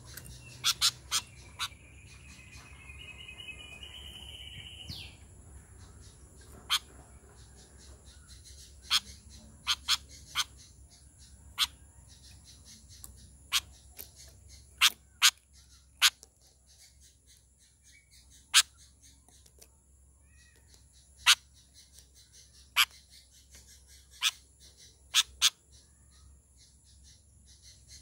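Sharp clicks and taps, one every second or two, from a caged sooty-headed bulbul moving about its cage. A short warbling bird call about three seconds in.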